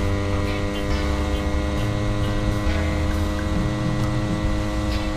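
Yamaha RX-King motorcycle's single-cylinder two-stroke engine running at a steady cruising speed, with uneven low wind rumble on the microphone.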